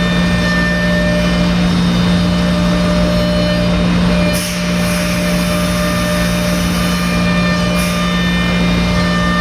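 A 5-axis CNC router's spindle running steadily as it mills the workpiece, a constant hum with a steady whine above it. Loudness dips briefly a little over four seconds in.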